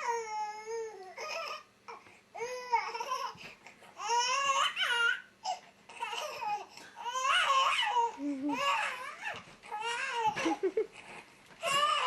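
A baby vocalizing in a string of high-pitched squeals and whiny babble, several separate cries and calls with short pauses between; fussy, sounding flustered.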